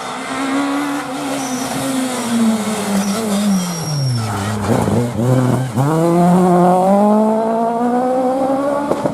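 Peugeot 306 Maxi rally car's four-cylinder engine at full racing revs. The revs fall steadily into the middle with a few quick blips, as when braking and downshifting for a corner, then climb hard again and hold high. Tyres squeal in the first half.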